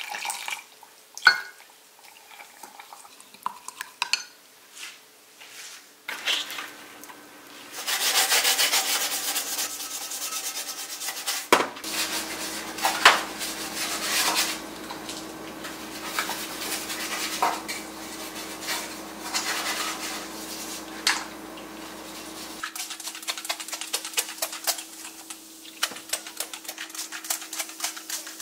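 Baking soda paste being mixed in a glass measuring cup, with a utensil clicking against the glass, then a dense scratchy rubbing as the paste is worked. The paste is then rubbed and scraped over a stainless steel stovetop by a gloved hand, in steady rubbing strokes with small clicks.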